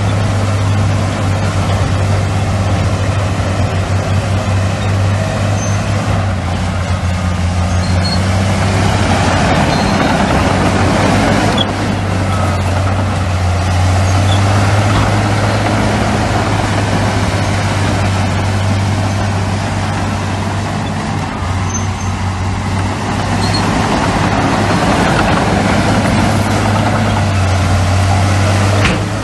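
Heavy diesel earthmoving machinery running steadily with a low engine drone, and louder swells of rushing, clattering noise several times as it works.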